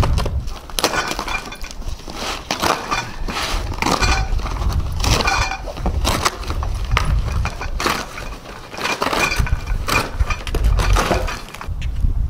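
A taped cardboard shipping box being cut open and torn apart by hand: irregular ripping and crackling of cardboard, on and off throughout.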